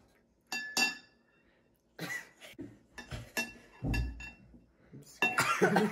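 Metal spoons clinking against ceramic bowls of stew: a few light, briefly ringing clinks as the spoons scoop, and a low thump about four seconds in. A voice breaks in near the end.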